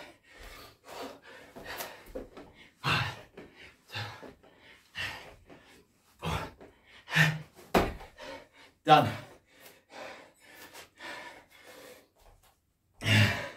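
A man panting hard through burpees, with sharp gasping breaths and short voiced grunts about once a second, and a thud near the middle as his hands or feet land on the mat. The breathing is that of a man worn out near the end of a long set of burpees.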